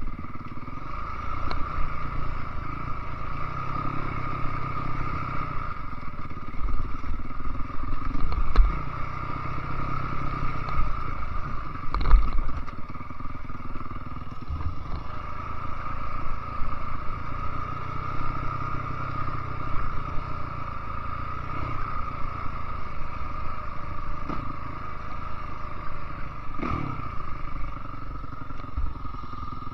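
Enduro dirt bike engine running under load on a rough forest trail, the revs swelling and easing as the rider works the throttle. Clatter and knocks from the bike over bumps, with two loud thumps about eight and twelve seconds in.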